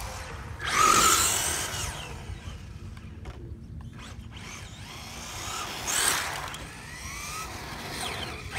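Electric Traxxas RC cars driving fast past on asphalt: motor whine rising and falling with a hiss of tyres, loudest as a car passes about a second in, with further passes around six seconds and near the end.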